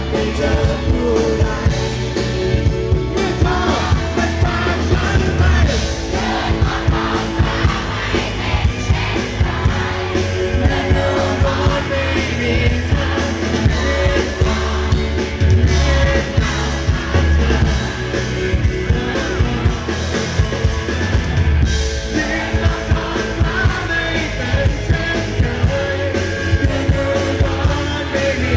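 Live rock band performance: a male singer singing a Thai song over electric bass, electric guitar and drums with a steady beat.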